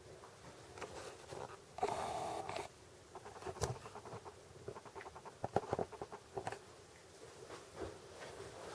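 Faint handling noise: a short rustle about two seconds in, then scattered small clicks and taps.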